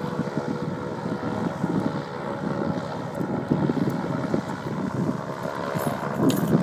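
Blimp's propeller engines droning steadily as it makes a low pass, with wind buffeting the microphone.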